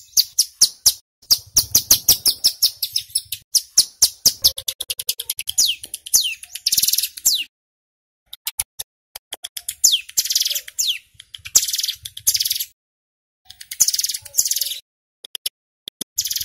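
A male ciblek gunung, a prinia, singing loudly in a cage. It gives fast runs of sharp, high chips and then, after a short pause about 8 seconds in, a string of buzzy rattling trills, the rapid 'ngebren' song.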